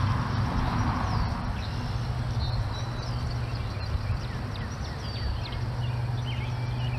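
Spinning reel cranked steadily to retrieve a crankbait, a low steady whirr under an even background rush. Small birds chirp in the background from about a second in.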